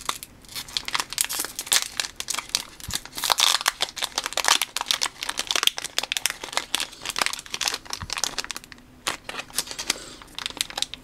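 Foil trading-card booster pack crinkling and crackling as fingers pick at and pull its crimped top seal to tear it open, with a short lull near the end.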